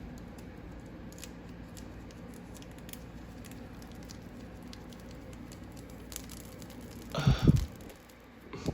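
Quiet handling noise: faint rustling and scattered light clicks of hands working with PC parts and their packaging, with one brief louder sound about seven seconds in.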